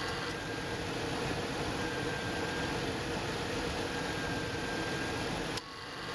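Car engine running with the A/C on: a steady mechanical hum from the engine bay, with a short click and a small drop in level near the end. The A/C compressor is cycling on and off rapidly, which can indicate an improper refrigerant charge such as low R-134a.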